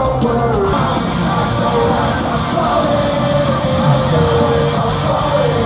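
Live rock band playing loudly while a male lead singer sings with held, gliding notes into the microphone, heard from the audience in an arena.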